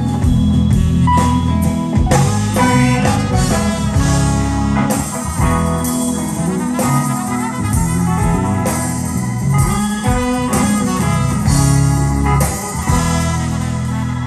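Live blues band playing an instrumental passage of a song, with a steady bass line and drums under the lead instruments.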